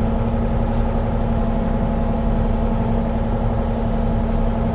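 Kubota mini excavator's engine running steadily at a constant speed, a low rumble with an even hum that does not change.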